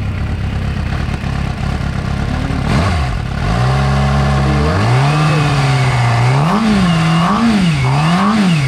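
2006 Suzuki GSX-R750's inline-four engine running. It settles into a steady note a few seconds in, then is revved in three quick throttle blips near the end.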